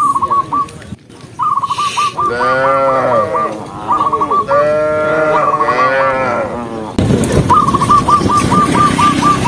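Cows mooing: several long moos, each rising and falling over about a second. A run of short high chirping notes, about six a second, repeats several times.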